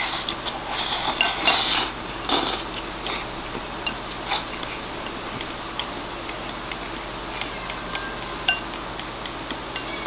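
Chopsticks scraping and clicking against a ceramic rice bowl as oyakodon is shovelled from the rim into the mouth. The noisy scraping comes in a cluster over the first three seconds, then gives way to occasional light chopstick taps on the bowl.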